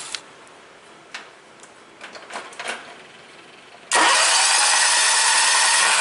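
Electric starter cranking the Kawasaki FD620D V-twin engine of a John Deere 6x4 Gator. It cuts in suddenly about four seconds in and spins the engine over evenly without firing, with no compression in the cylinder under test: a crank-no-start fault.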